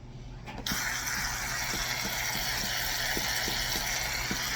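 Aerosol can of shaving cream being pressed and spraying foam: a steady hiss with faint crackling that starts suddenly under a second in.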